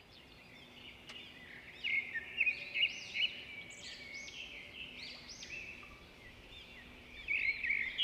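Birds chirping and calling, many short rising and falling whistles overlapping, growing louder about two seconds in.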